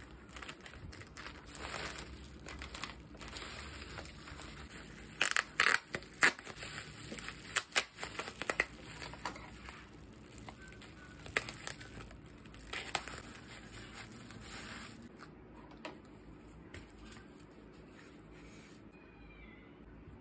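Scissors cutting open a plastic mailer bag and the bubble wrap inside, with the plastic crinkling and crackling as it is handled. Sharp snips and crackles are loudest about five to eight seconds in, and the sound drops to quiet handling for the last few seconds.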